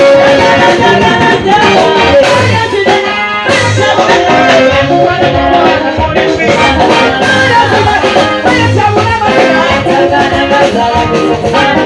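Loud song with singing over a steady beat, with shaker percussion.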